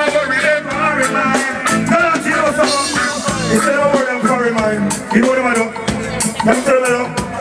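Live reggae music: a male vocalist singing over a backing band with a steady drum beat.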